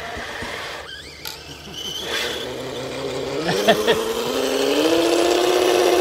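Small electric motor of a radio-controlled 4x4 car whining, its pitch climbing slowly and steadily as it spins up, getting louder from about halfway through.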